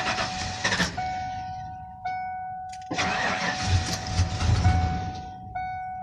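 1995 Ford F-250 engine being cranked by its starter twice, once ending just under a second in and again for about two and a half seconds, the second attempt gaining a deeper rumble before it stops: the truck's no-start and stalling fault. A dashboard warning chime repeats about once a second.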